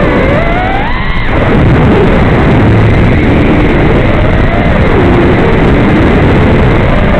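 FPV quadcopter's 2206 brushless motors and propellers whining, picked up through the onboard camera's audio. The pitch rises about a second in, then a rushing noise takes over, with a lower whine wavering up and down as the throttle changes.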